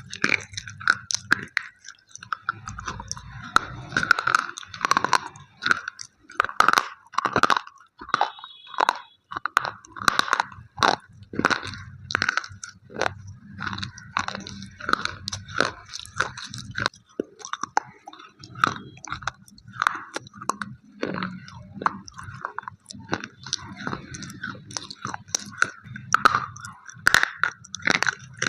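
Close-miked biting and chewing of slate pencils: a steady run of sharp, dry crunches, one or two a second, as the chalky sticks are bitten and ground between the teeth.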